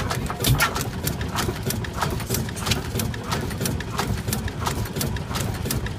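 1905 Crossley Bros. Type S horizontal stationary engine running, its valve gear and moving parts making a rapid, regular clicking, several clicks a second, over a low rumble.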